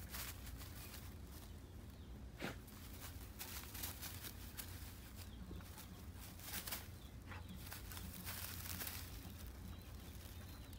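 Dry grass rustling and crackling as a dog pushes through it and paws at a burrow, in short, irregular scratches over a low steady rumble.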